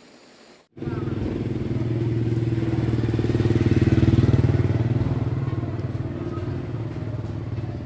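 Motorcycle engine running at a steady pitch, starting abruptly just under a second in, growing louder to a peak about halfway through and then easing off.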